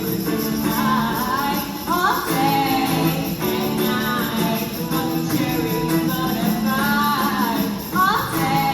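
A female singer sings over a guitar accompaniment in a live performance of a song, with an upward scoop into a note about two seconds in and again near the end.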